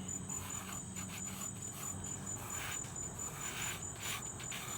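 A single insect, cricket-like, trilling steadily: a continuous high-pitched, rapidly pulsed trill, with faint scratchy rustling beneath it.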